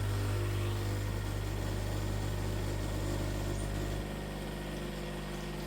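Espresso machine's pump running with a steady low buzz as it brews a shot. It eases a little in loudness about four seconds in.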